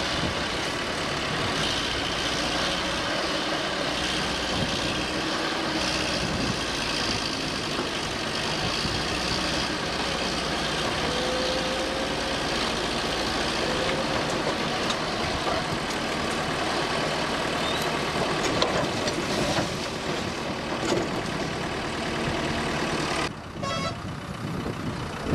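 Mobile crane's diesel engine running steadily under load as it hoists an overturned bus upright. Near the end the sound drops abruptly and changes character.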